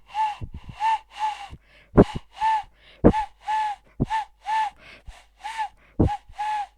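Cupped-hand whistle blown in imitation of a wood pigeon's cooing: a run of short, hollow hooting notes of about the same pitch, grouped in phrases. Sharp breathy gusts into the hands break the phrases, and these are the loudest sounds.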